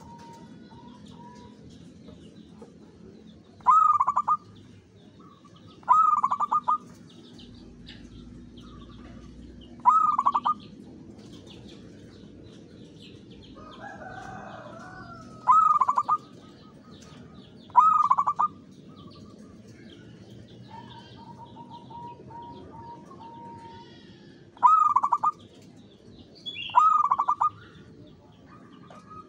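Zebra dove (local Javanese perkutut) cooing: seven short, loud, staccato coo phrases spaced a few seconds apart. A softer trilling coo comes between them, once near the start and once about two-thirds through.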